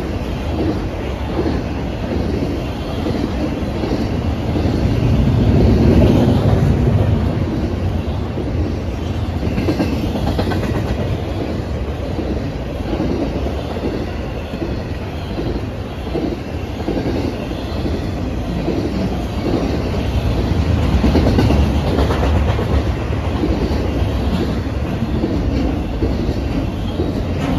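BNSF intermodal Z train of truck trailers on flatcars rolling past, its wheels running over the rails in a steady low rumble. The rumble swells about five seconds in and again about twenty seconds in.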